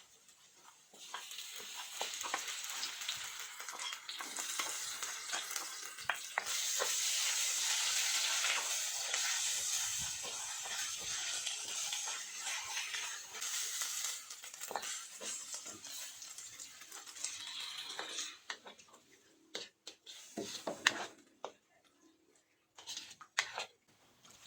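Food sizzling in hot oil in a pan while being stirred, with a steady hiss that is loudest about seven seconds in. It dies away about eighteen seconds in, leaving scattered knocks and clinks of a utensil against the pan.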